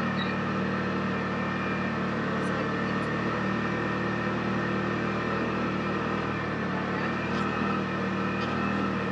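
Side-by-side UTV engine running at a steady speed while driving along a trail, with an even, unchanging engine note.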